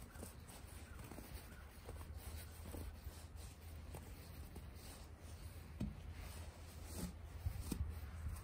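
Bare hands packing powdery snow into a small snowball: faint, irregular crunching and rubbing of the snow under the fingers, over a low steady rumble.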